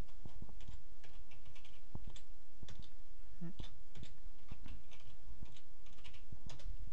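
Computer keyboard typing: irregular runs of key clicks, over a steady low hum.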